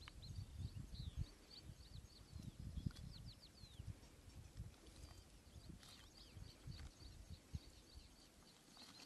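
Faint birdsong: short high chirps repeat throughout, with a few quick falling notes in the first few seconds, over soft low knocks and rustling.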